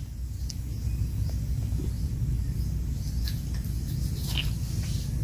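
Outdoor background: a low rumble with a few faint, short high chirps scattered through it.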